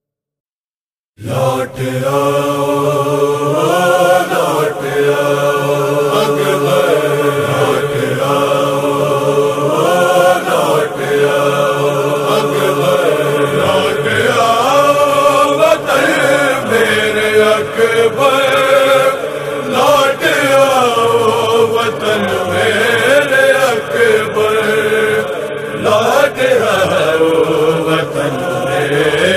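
After about a second of silence, a voice starts chanting a drawn-out melodic noha, the lament sliding smoothly between pitches.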